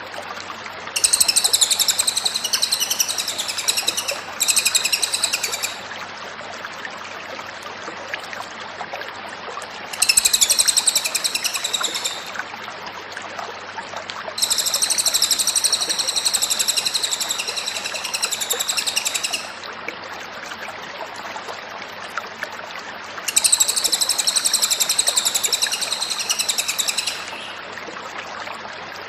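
A cililin songbird singing in high-pitched bursts of a few seconds each, four in all with short pauses between, over a steady background hiss.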